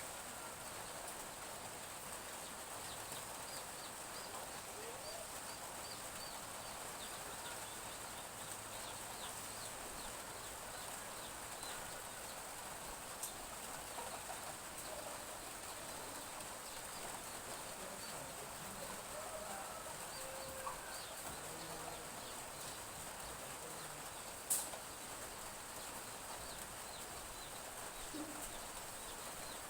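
Light drizzle hissing steadily while chicks peep faintly and chickens cluck now and then. A single sharp click stands out about three-quarters of the way through.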